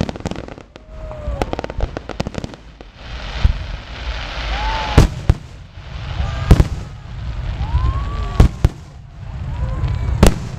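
Fireworks display: aerial shells bursting in sharp booms every second or two, with a run of fast crackling about a second in and a rushing hiss a few seconds later.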